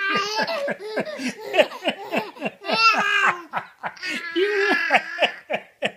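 Baby laughing in a fast run of short, high-pitched laughs, with a couple of longer drawn-out laughs about three and four and a half seconds in.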